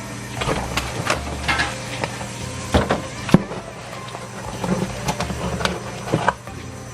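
Background music with a steady bass line, with scattered sharp knocks and clicks over it.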